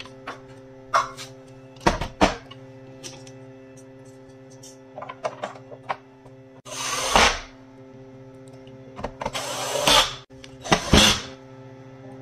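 Plastic housing of a copier's touch-screen control panel being handled: sharp plastic clicks and knocks early on, then three rustling, scraping bursts as the panel is turned over and slid on the workbench. A faint steady hum sits underneath.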